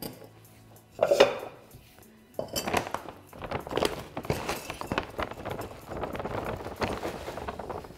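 Plastic bag of cactus potting mix crinkling as it is handled, then soil pouring from the bag into a terracotta pot, a dense crackly rustle with small clinks. A sharp rustle comes about a second in, and the steady crinkling and pouring start about two and a half seconds in.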